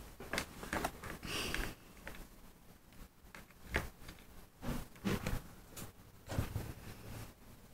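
Faint handling noises: a few light taps and knocks with a short rustle, as small pieces of modelling clay are set down and pressed on a table.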